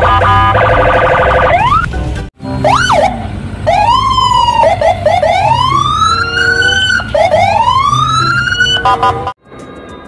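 Police car sirens: a fast-pulsing electronic tone for about two seconds, then after a brief cut a siren sweeping up and down in pitch, which cuts off abruptly about a second before the end.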